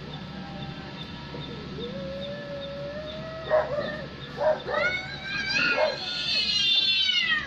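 Cats yowling in a standoff, played through a television's speaker: a long low wail starting about two seconds in, then a rising-and-falling caterwaul that grows loudest near the end.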